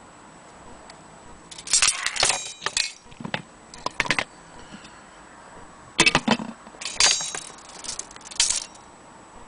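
Metal clinking and rattling in several short bursts, from a Koma anniversary dome clock and its parts being handled.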